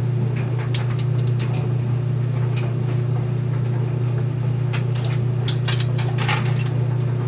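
Bottle of apple cider vinegar being handled: its cap is unscrewed, vinegar is poured out as a capful and tipped into a steel water bowl, making scattered small clicks and taps and a short pour. All of it sits over a steady low hum.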